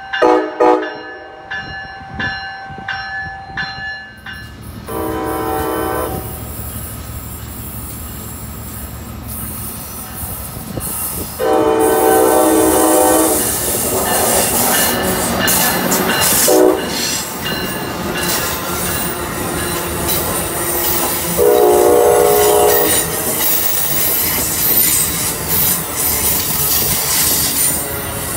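Amtrak train horn sounding in a series of blasts: a run of short toots at the start, then longer blasts about five, twelve and twenty-two seconds in. Between and under the blasts a train rumbles past, its wheels squealing on a curve.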